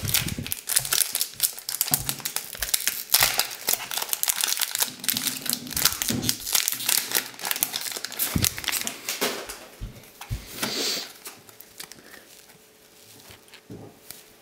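Foil Pokémon booster-pack wrapper crinkling as it is handled and opened and the cards are pulled out: a dense crackle that thins out and grows quieter about eleven seconds in.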